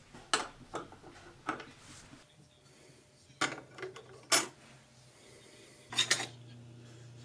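Small metal cooking plate and utensils clinking and clacking as they are handled and set down on a miniature stove: several short sharp clinks, the loudest about four seconds in and a cluster about six seconds in.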